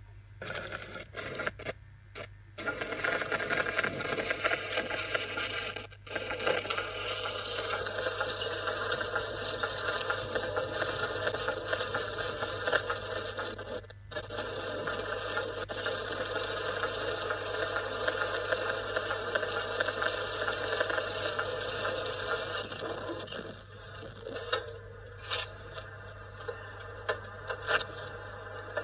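Audio from a tape played back on a repaired Sony BVW-35 Betacam recorder, heard through a small old Sony TV monitor's speaker: a steady run of sustained tones with no speech, under a constant low hum. A few sharp clicks come near the end.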